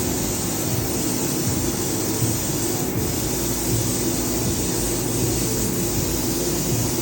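A steady, even droning noise with a low hum underneath that does not change.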